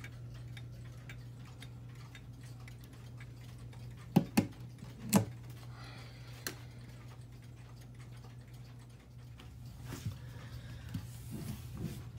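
Howard Miller 613-303 wall/mantle clock's pendulum movement ticking steadily over a steady low hum. About four and five seconds in come three loud, sharp knocks, the loudest sounds here, with a few softer knocks near the end.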